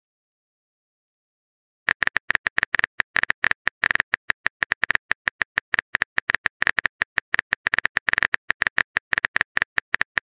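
Phone keyboard typing sound effect: rapid, irregular key clicks, starting about two seconds in.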